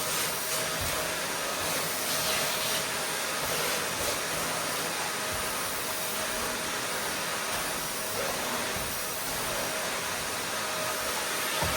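Vacuum cleaner running steadily: an even rushing noise with a faint steady whine on top.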